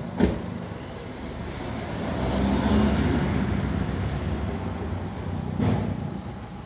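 A car passing by on the street, its noise swelling to a peak about three seconds in and slowly fading. There is a short click just after the start and a knock near the end.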